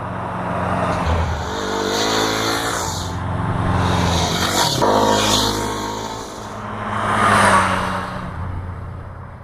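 Engine revving up and down, its loudness swelling and fading several times, loudest about two-thirds of the way in.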